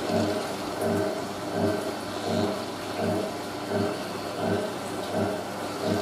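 Hotpoint 9530 front-loading washing machine with its drum turning a wet load. The sound surges in an even rhythm, a little faster than once a second, with a slightly unbalanced load in the drum.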